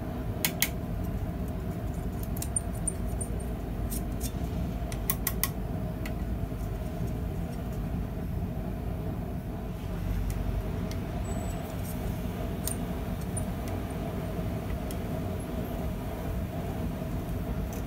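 6 mm mild steel rod being wound around a mandrel in a vise-held coiling jig: a few light metallic clicks and taps of the rod against the jig, mostly in the first six seconds, over a steady low rumble with a faint hum.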